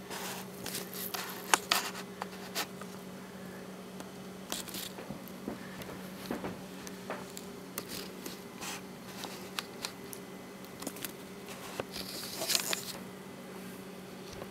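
Handling noise: scattered small clicks and rustles, bunched about a second and a half in and again near the end, over a steady low hum.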